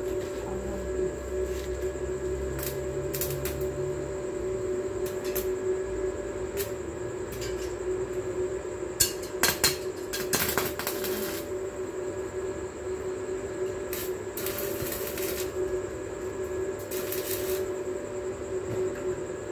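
Electric arc welding on thin steel bars: a steady hum with repeated bursts of crackling from the arc, the sharpest about halfway through.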